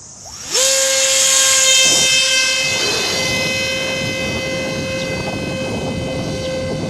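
Electric motor and propeller of a small foam RC glider spinning up sharply about half a second in, then holding a steady high whine under a rush of air noise.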